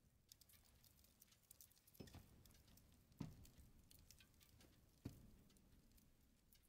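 Soft footsteps on a floor in a very quiet room: three low thumps spread a second or two apart, with scattered faint clicks in between.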